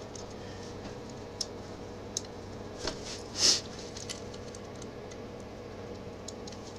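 Scattered light clicks and taps of small metal parts and hand tools while a motorcycle cam chain tensioner is worked into place on the engine. A brief hiss comes about three and a half seconds in, over a faint steady hum.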